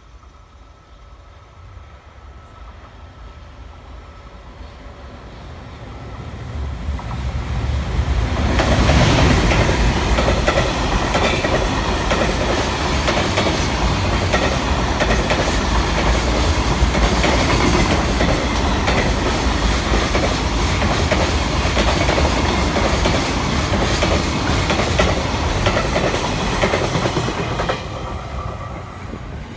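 Freight train hauled by an EF510 electric locomotive, passing at speed. A rumble builds over the first several seconds, then comes a long, loud run of wagon wheels clattering over the rails, which eases off near the end.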